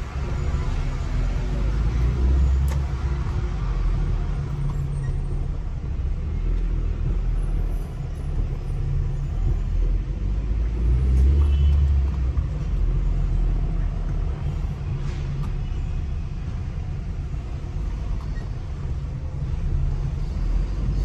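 Low rumble of a car driving slowly along town streets, heard from inside the cabin: engine and road noise that swells and eases a little.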